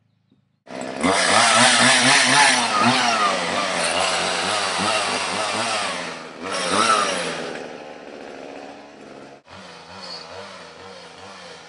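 Chainsaw running, its engine pitch swinging up and down again and again. It is loud at first and softer after about eight seconds, with a brief dropout near the end.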